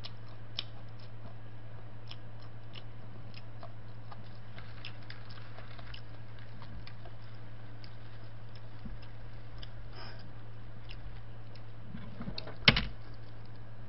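Soft chewing and small handling clicks of a person eating fried chicken with plastic-gloved hands, over a steady low hum. One sharp, loud knock stands out near the end.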